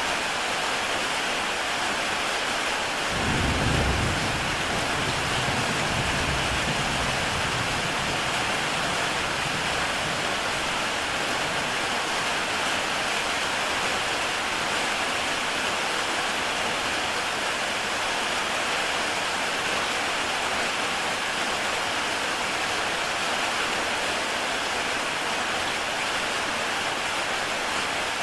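Heavy rain drumming steadily on a tile roof. About three seconds in a low rumble of thunder rises suddenly and fades away over a few seconds.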